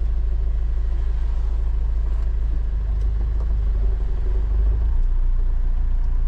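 Car engine idling: a steady low rumble whose deepest part shifts slightly about five seconds in.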